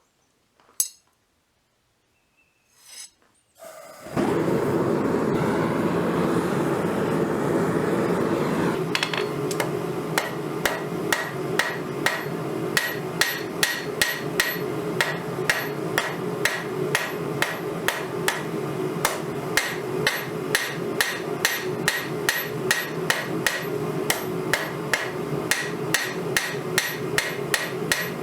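A few light clinks, then a steady rushing noise starts about four seconds in, typical of a forge running. From about nine seconds, a hammer strikes the steel of a scrap file on an anvil over that noise, about two ringing blows a second.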